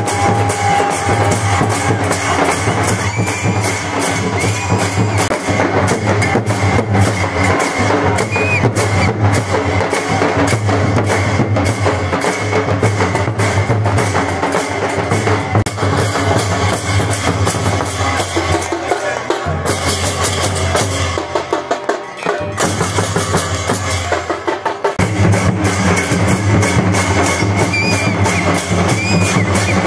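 Hindu temple aarti music: fast, continuous drumming and struck percussion, many strokes a second, over a steady low tone. The low drum sound drops away for a few seconds about two-thirds of the way through, then returns.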